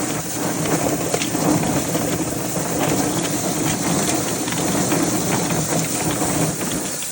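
Vevor stainless-steel automatic chicken plucker running with a scalded chicken spinning inside: a steady motor hum under a dense, rain-like patter of the rubber fingers slapping the bird. It drops off near the end.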